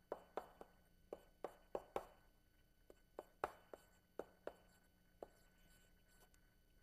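A dozen or so faint, sharp clicks or taps at irregular intervals, thinning out after about five seconds, over a near-silent room with a faint steady hum.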